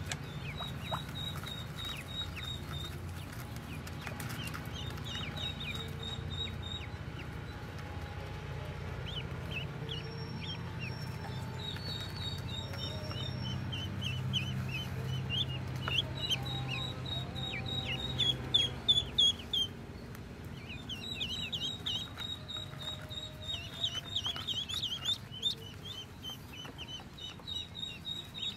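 Pekin ducklings peeping: runs of short, high-pitched peeps. A few louder sharp noises come about two-thirds of the way through.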